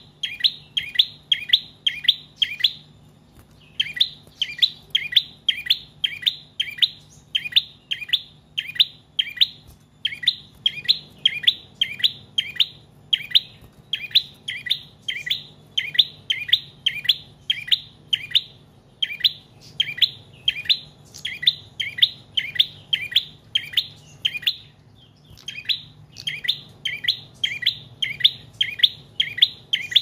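Caged tailorbird (prenjak trotol) singing long, nearly unbroken runs of sharp, high, repeated chirps, about three to four a second, with brief pauses about three seconds and twenty-five seconds in.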